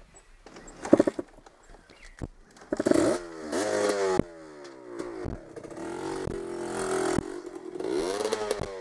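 Dirt bike engine revving in repeated blips, each rev rising sharply and falling away, with a few sharp knocks and clatter in between.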